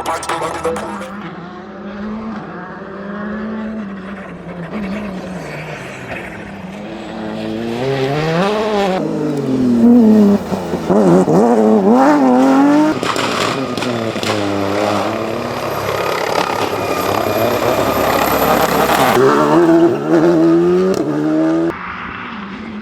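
Rally car engine under hard acceleration, its pitch climbing and dropping again and again with gear changes and lifts off the throttle. It grows loudest through the middle as the car passes close, with a few sharp cracks.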